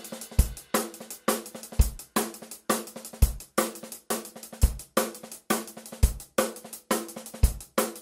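Intro music with a steady drum-kit beat: a deep kick about every second and a half, sharper cymbal and snare hits between, over a held low note.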